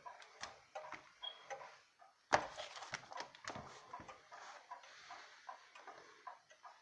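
Faint ticking of a 1971 Barwick (Howard Miller) grandfather clock's weight-driven, West German-made movement as its pendulum swings, with a louder click about two seconds in.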